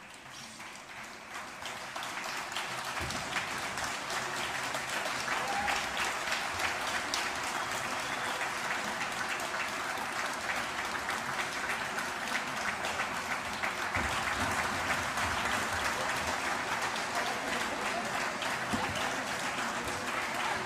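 Audience applauding: the clapping swells over the first couple of seconds, then goes on steadily.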